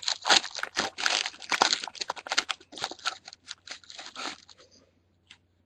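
Foil wrapper of a football trading card pack being torn open and crinkled, a dense crackling that stops about four and a half seconds in.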